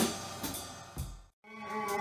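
Live experimental improvised music: a cymbal-like percussion hit rings out and decays, with a second hit about a second in. It cuts to silence for an instant just past halfway, then held, steady tones come back in.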